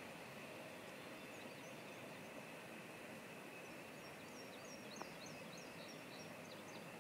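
Faint steady hiss of quiet open country, with a small bird singing two short runs of quick high chirps and one soft click about five seconds in.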